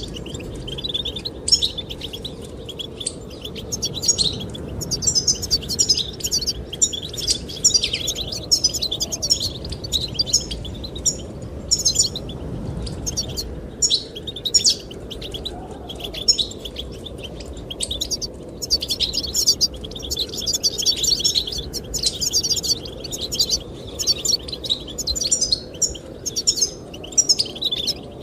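Goldfinch singing a fast twittering song in quick runs broken by brief pauses, over a steady low rush of wind.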